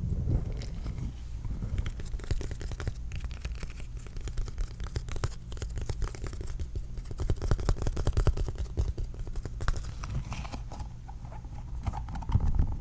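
Hands handling a clear Orbeez water-bead ball close to the microphone, giving a dense, irregular run of small clicks and crackles over a low rumble.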